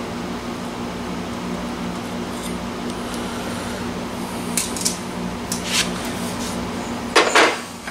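Steel square tubing and tools being handled, with light metallic clicks and then a loud clank near the end as the tubing knocks down onto the chop saw's metal base and vise. A steady low hum runs underneath.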